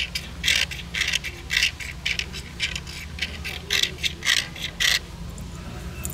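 Ferro rod being struck with a metal scraper, short harsh scrapes about twice a second, throwing sparks onto tinder to light a fire. The striking stops about five seconds in, leaving a steady low hum.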